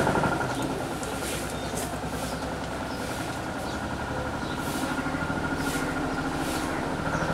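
A motor running steadily with a fast, even pulse, with short hisses now and then.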